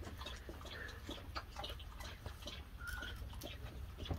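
Faint clicks and rustles of a black-metal link chain and heart pendant being handled and laid out on a cloth, the links clinking lightly. A brief faint high tone sounds about three seconds in.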